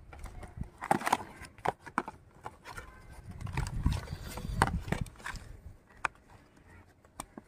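A cardboard KFC chicken box being opened and handled: irregular crackles and light taps of the cardboard flaps, with a low rumble swelling midway.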